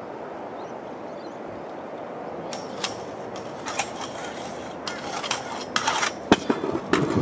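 Stunt scooter rolling on concrete, then a run of knocks and scrapes as it hits and grinds a metal handrail beside stairs, with one sharp bang about six seconds in.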